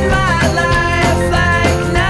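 Background music: a band track with a steady beat and a wavering lead melody.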